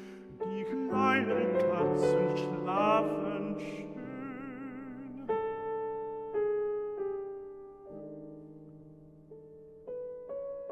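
Slow, gentle piano intro of an AI-generated song. A brief wordless vocal flourish with vibrato comes in the first few seconds, then single piano notes fall about once a second and fade away.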